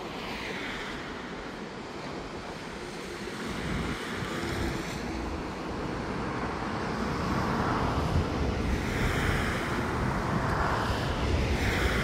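Steady wind and tyre noise from a car driving along a highway, growing a little louder, with several whooshes in the second half as other vehicles pass.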